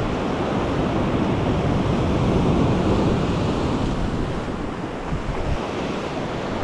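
Ocean waves washing across a shallow rocky reef shelf in a steady rush that swells a little partway through, with wind rumbling on the microphone.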